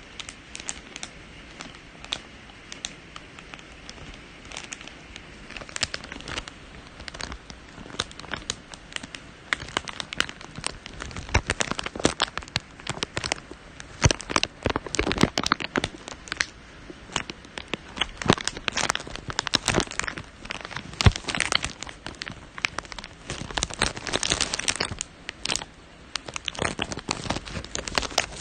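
Foley for an egg hatching: irregular crackling and crunching snaps like eggshell breaking. Sparse at first, then denser and louder from about ten seconds in, easing off briefly near the end before picking up again.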